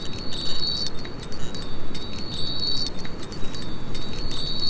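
Two close, high-pitched ringing tones that come and go repeatedly, with scattered faint clicks, over a steady low rumbling hiss.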